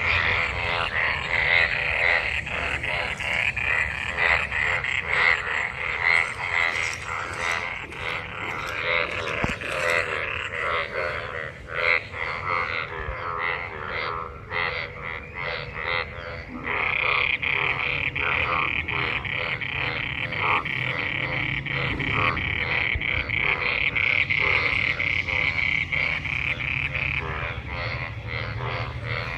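Breeding chorus of many frogs calling together, a dense, continuous din of overlapping rapid croaks. A higher, steadier trilling grows stronger a little past halfway through.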